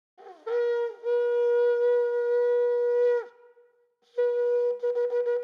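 A shofar blown: a short sliding start, then one long steady note held for about three seconds, then after a pause of about a second, a run of short broken notes at the same pitch.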